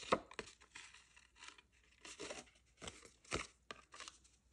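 Stiff card stock being handled while nylon beading cord is pulled through its punched holes: a run of short, irregular papery rustles and scrapes. The sharpest comes just after the start and another about three and a half seconds in.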